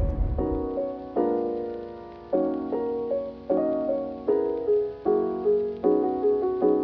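Soft background music: piano chords struck about once a second. A low car rumble fades out in the first half second.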